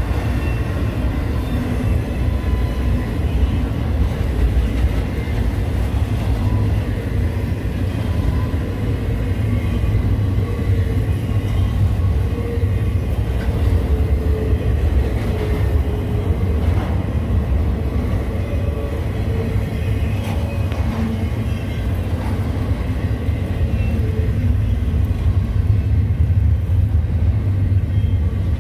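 Freight train rolling past at a steady pace: a continuous heavy rumble of wheels on rail, with thin wavering squeals from the wheels over it.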